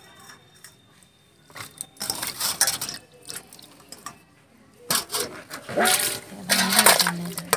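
Hands washing small fish in a steel bowl of water: splashing and rubbing, with a few knocks of fish and fingers against the bowl.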